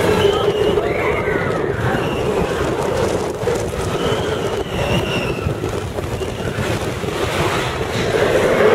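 Roller coaster train running through a dark enclosed section: a loud steady rumble of wheels on track and rushing air, with a few short high squeals over it.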